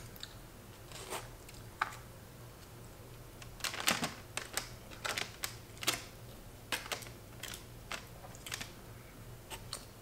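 Chopsticks clicking and scraping against a foam takeout box and a plastic bento tray, a run of sharp irregular taps that is busiest around four to seven seconds in.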